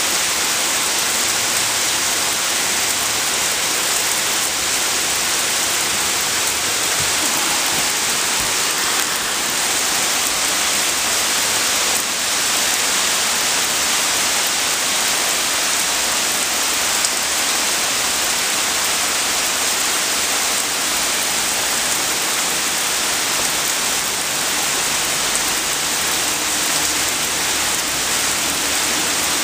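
Heavy rain falling steadily on a wet paved parking lot, an even, unbroken hiss of drops hitting asphalt and puddles.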